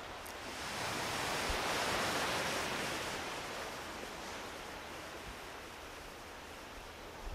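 Small waves washing in on a sandy beach: a soft surge of surf swells up in the first second or two, then fades back to a steady, faint wash.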